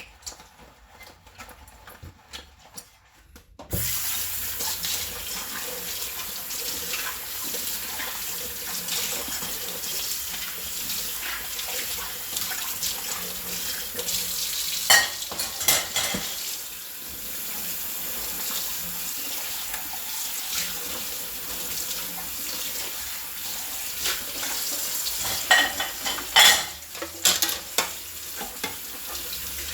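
Kitchen tap turned on a few seconds in, water running steadily into a sink during manual dish washing. Dishes knock and clink under the stream, with louder clatters of plates and bowls midway and near the end.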